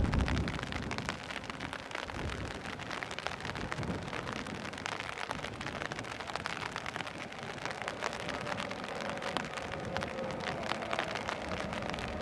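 Steady rain pattering on a station platform. From about two-thirds of the way in, a faint steady tone joins it as a Hellenic Railways class 120 electric locomotive approaches.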